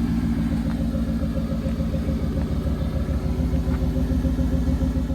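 Classic truck engine idling steadily, with an even low pulsing beat.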